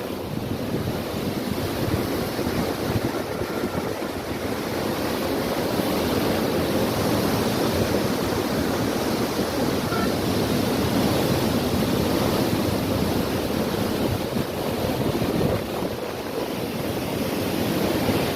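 Floodwater rushing through a river barrage in a steady, loud roar, with wind buffeting the microphone.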